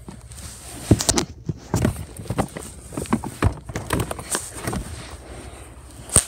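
Handling noise: irregular knocks, taps and rustles close to the microphone as the phone is moved about, with a sharper knock near the end.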